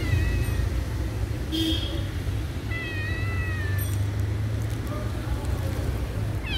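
Street cat meowing: a short meow at the start, then a longer drawn-out meow about three seconds in that rises and falls, and a faint one near the end, over a steady low rumble.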